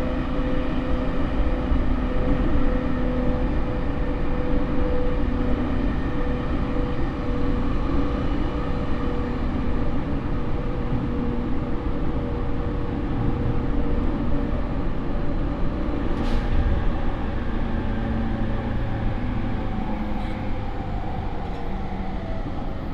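JR E231-series electric train heard from inside a motor car at speed: a steady electric hum from the Mitsubishi IGBT VVVF traction equipment and motors, over the constant rumble of wheels on rail. A faint click comes about sixteen seconds in.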